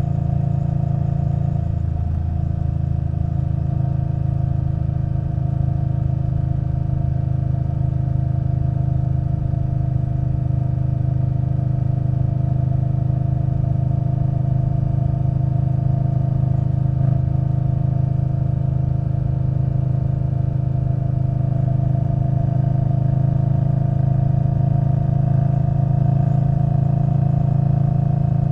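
Indian Scout Bobber Twenty's liquid-cooled V-twin running through a Vance & Hines Twin Slash exhaust, holding a steady engine note that rises slightly in pitch near the end.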